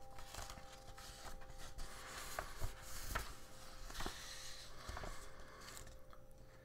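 Sheets of paper being handled and turned close to the microphone: a soft rustle that builds in the middle, with a scattering of small clicks.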